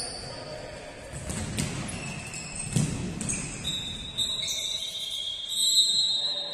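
Basketball game on an indoor court. A ball thuds on the floor several times in the first half, then sneakers squeak on the court in a long, high squeal through the second half.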